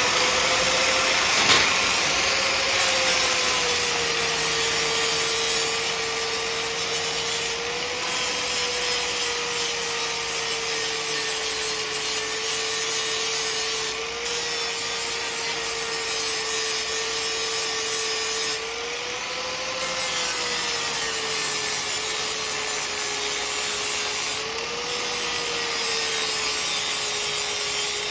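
Angle grinder with a flap disc grinding the coating off steel driveshaft-loop pieces. The motor whines steadily and sags in pitch while the disc bites, and the rough grinding hiss breaks off briefly about four times as the disc is lifted off the metal.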